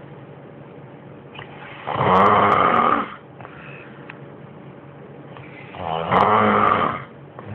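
Snoring: two loud snores about four seconds apart, each lasting about a second, much quieter in between.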